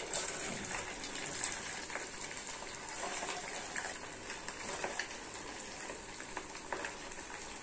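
Medu vadas deep-frying in hot oil in a kadhai: a steady sizzle of bubbling oil with scattered crackles and pops.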